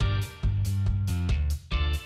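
Background music: an upbeat instrumental track with plucked, guitar-like notes over a steady bass line.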